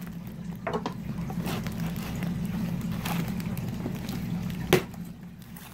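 A cardboard shipping box being handled and opened by hand: scattered rustling and scraping of cardboard and packing tape, with one sharp tap near the end, over a steady low hum.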